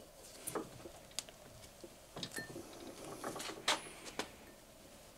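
A thin sheet-metal crankbait diving lip being bent in a steel bench vise with pliers and by hand: a handful of light, irregular metal clicks and scrapes.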